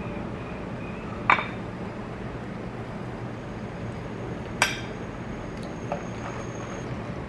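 Metal fork clinking against a ceramic plate: two sharp clinks about three seconds apart, then a fainter one. A steady low hum runs underneath.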